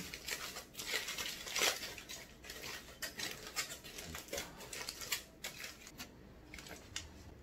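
Aluminium foil crinkling and rustling as it is unwrapped from a gimbap roll, a quick run of crackles that thins out near the end.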